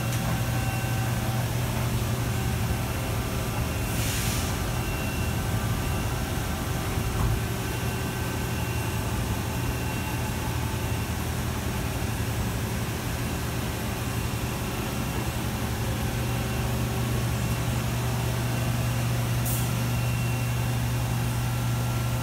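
Fadal VMC-4020HT vertical machining center powered up, giving a steady low electrical hum, with a brief hiss about four seconds in and another near the end.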